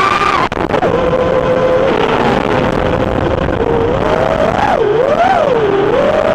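A 210-size FPV racing quadcopter's brushless motors and propellers whining in flight. The pitch holds level for a few seconds, then rises and falls several times as the throttle changes. There is a brief dropout about half a second in.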